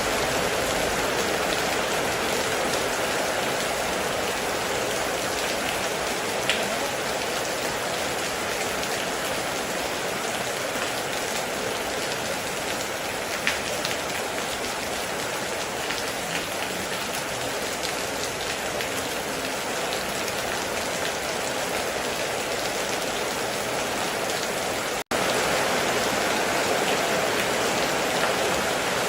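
Heavy rain falling steadily, a dense even hiss with a few sharper drop ticks. It cuts out for an instant about 25 seconds in, then resumes.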